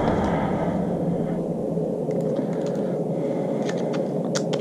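A few light clicks of a small screw and hand tool being handled, several in quick succession near the end, over steady background noise.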